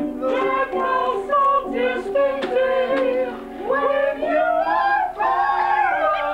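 Voices singing along to an upright piano being played.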